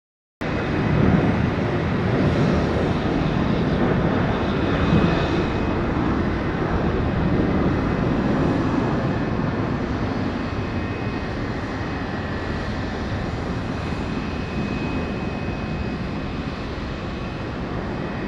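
Fixed-wing aircraft engine running at a landing field: a dense steady rumble with a faint high whine. It starts abruptly about half a second in and slowly eases off.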